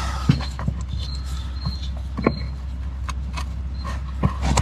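Scattered light clicks and knocks of parts being handled while a rear air spring is worked into place, over a steady low hum.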